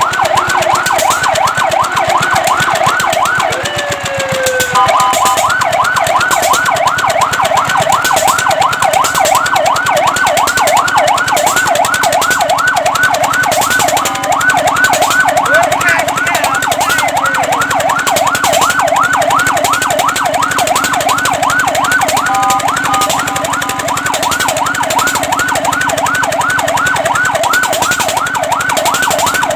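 Fire truck's electronic siren on a fast yelp, its pitch rising and falling about three to four times a second. It switches briefly to a slower sweep and steady tones about four seconds in, and to steady tones again near the 23-second mark.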